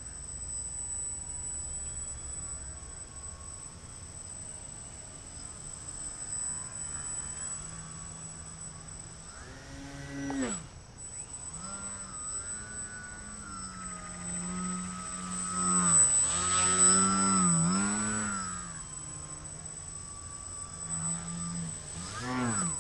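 Small brushless motor (SunnySky 2204 1800kv) and propeller of an RC 3D foam plane buzzing in flight, its pitch swooping up and down as the throttle is worked and the plane passes. It cuts off sharply about halfway, then comes back and is loudest a little later.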